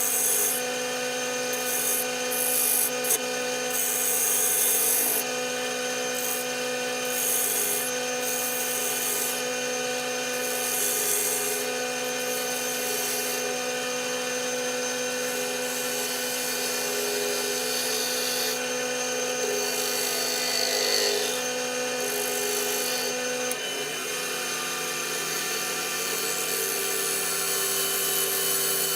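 Wood lathe running with a steady motor hum while a turning tool cuts a spinning walnut blank, the cutting hiss coming and going in irregular bursts. Near the end the hum drops slightly in pitch.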